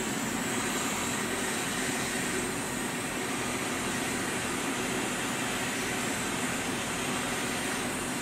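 Hot air rework station blowing a steady rush of air onto a circuit board, heating the shorted controller IC to desolder it.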